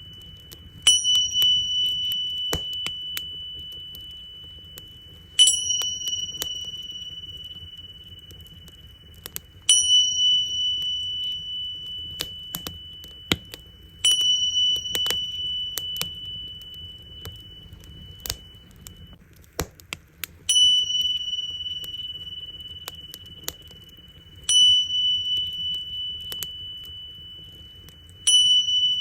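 Tingsha cymbals struck together about every four seconds, seven times, each strike leaving a high ringing tone that fades slowly. Underneath, a wood fire crackles with scattered sharp pops over a low steady rumble.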